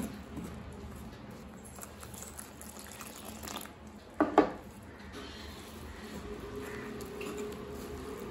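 Steel spoon stirring wheat flour and water together in a glass bowl, with wet mixing sounds and a short clatter about four seconds in.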